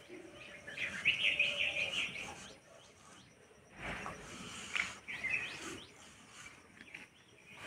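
Small birds chirping in quick, repeated high calls, loudest in the first couple of seconds. A brief scratchy rush sounds about four seconds in.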